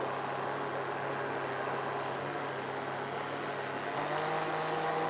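Electric countertop blender running, mixing a cake batter with cocoa in its jug: a steady motor hum with whirring. The hum steps up in pitch about four seconds in.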